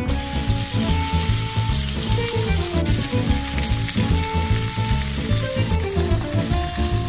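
Food sizzling as it fries in a hot pan, under background fiddle music with a steady bass beat.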